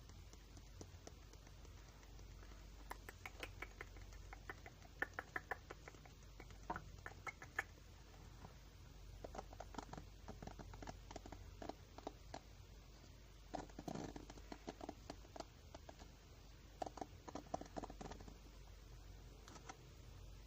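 Soft, close-up ASMR tapping and scratching sounds: clusters of quick light clicks and scrapes, separated by short pauses.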